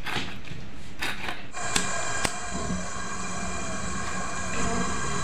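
Hand squishing and mixing sliced kakrol with spice paste in a steel bowl: a few soft wet scrapes against the metal. About a second and a half in this cuts to a steady, even hum of several held tones that runs on unchanged.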